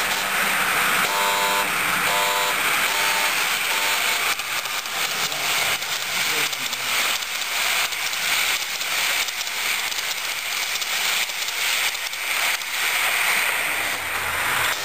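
Model train rolling past on layout track: a steady hissing, crackling run of wheel and motor noise. A few short pitched tones sound in the first four seconds.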